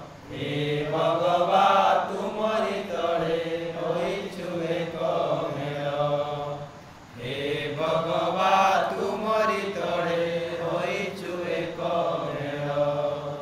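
A man singing an Odia patriotic song alone in a chant-like melody, with no instruments. He sings two long phrases, with a short breath about halfway through.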